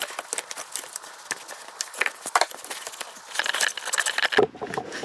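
Hands and hand tools working the upper radiator hose off the thermostat housing of a car engine: irregular clicks and scrapes of metal and rubber, with a run of short squeaks about three and a half seconds in. The sound stops abruptly near the end.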